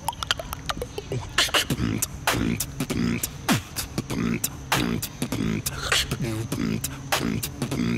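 Beatboxing: a fast, rhythmic run of mouth-made drum hits, sharp clicks and snare-like hits, mixed with bass tones that slide down in pitch.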